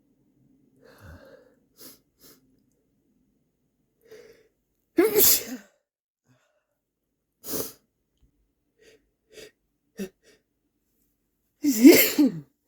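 A person sneezing: soft catching breaths, then a loud sneeze about five seconds in, a shorter one a couple of seconds later, and the loudest sneeze near the end.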